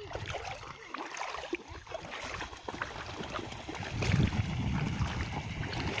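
Shallow seawater sloshing and lapping around wading legs, with small irregular splashes. A low rumble swells in about four seconds in, making the sound louder toward the end.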